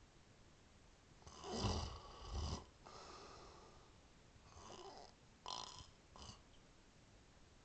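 Snoring: one loud snore in two parts, starting about a second and a half in, then a few shorter, softer snores and breaths around five to six seconds in.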